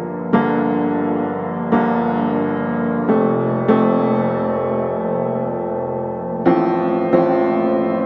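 Background music of slow, gentle piano chords, with six chords struck and left to ring, some following close on one another.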